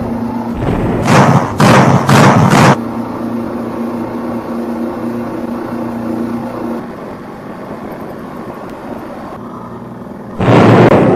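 The mechanism of a steampunk warship model runs with a steady hum while its bow door slides open to uncover the cannon. The hum stops about seven seconds in. Three loud rushing bursts come between one and three seconds in, and another comes near the end.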